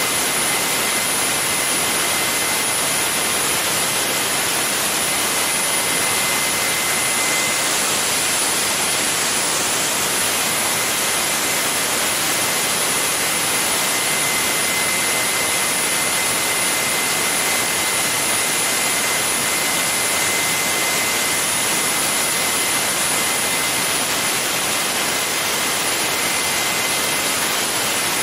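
Garrett GTCP85 aircraft auxiliary power unit, a small gas turbine, running at steady speed: a loud even rushing noise with steady high whistling tones.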